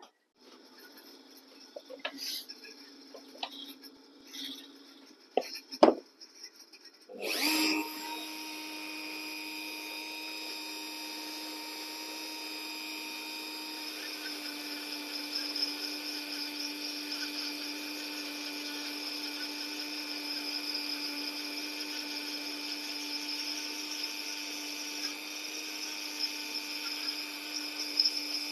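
A few handling knocks and clicks, then about seven seconds in a rotary tool switches on and runs at a steady pitch, its burr grinding into a scroll-sawn ash rose piece, the grinding wavering slightly as it cuts.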